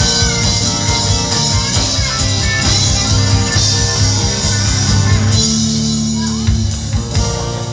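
Live band playing amplified through a PA: guitars over bass, drums and keyboards. Near the end the drumming thins and held chords ring.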